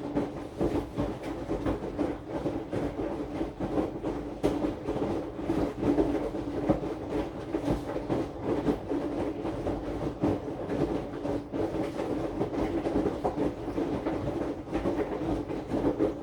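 Aqua AQW-DX12M front-loading drum washing machine turning its drum with the load: a steady motor hum with dense clattering and rattling of the cabinet, picked up by a phone lying on top of the machine.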